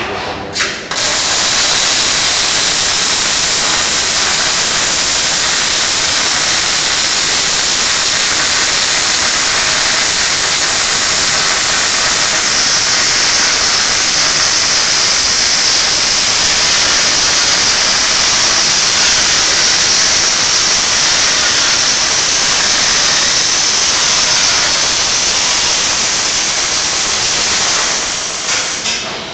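Welding arc of a Panasonic robotic welder burning steadily as the robot runs a weld, a loud even hiss that starts about a second in and stops just before the end.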